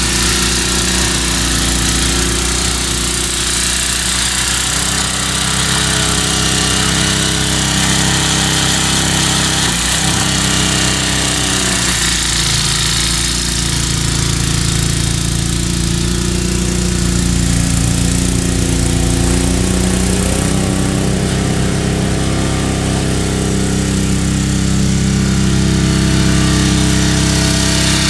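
Tecumseh-powered MTD snowblower engine running steadily under load in heavy wet snow, its pitch dipping briefly and recovering a couple of times about a third of the way in.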